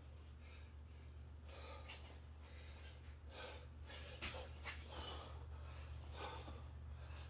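A man breathing hard in short, quick breaths, winded from doing burpees, with a slap of hands landing on a mat about four seconds in. A steady low hum runs underneath.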